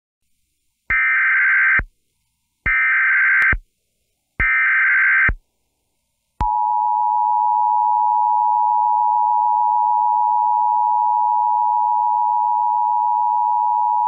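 Emergency Alert System SAME header: three bursts of screeching data tones about a second each, the digital header sent three times. About six seconds in, the EAS two-tone attention signal starts and holds steady.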